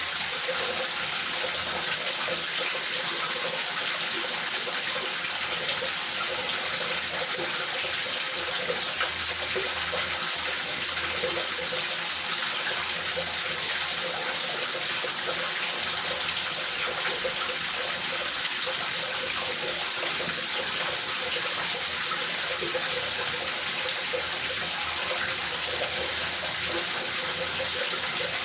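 Steady rain falling, an even hiss without breaks or thunder.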